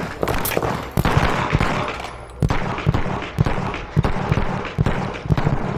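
Pistol gunshots fired in quick pairs and short strings with brief pauses between them, as a shooter runs a USPSA practical-shooting stage.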